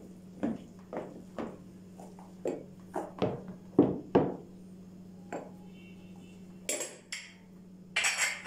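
Plastic measuring scoop and spoon knocking against plastic mixing bowls as flour is scooped and tipped: a run of about ten light knocks over the first four seconds, the loudest near the end of the run. Two short scraping noises follow near the end.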